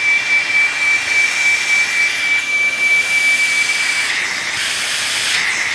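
Pet grooming vacuum running with a steady rush of air and a high whine; about four seconds in the whine stops and the hiss of air grows brighter as the suction is turned up.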